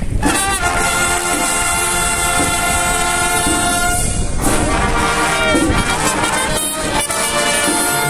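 Marching band's brass section (trumpets and trombones) playing, coming in just after the start with a long held chord and moving to a new phrase about halfway through.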